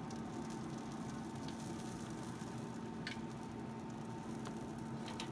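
Chicken and vegetable kabobs sizzling on the hot grate of a running pellet grill, over the grill's steady fan hum. A few light metal clicks from tongs come about one and a half, three and five seconds in.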